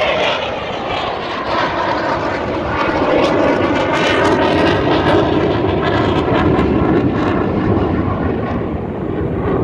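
Military jet flying past overhead: a loud, steady jet rush that builds to a peak about halfway through and then eases off, with a tone that slowly falls as it passes.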